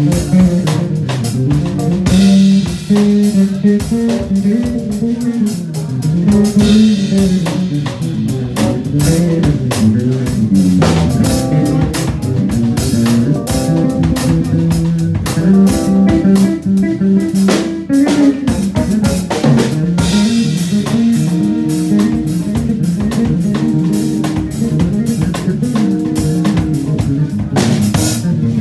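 Live electric bass guitar playing a busy melodic line over a drum kit, with drum hits, rimshots and cymbal washes throughout.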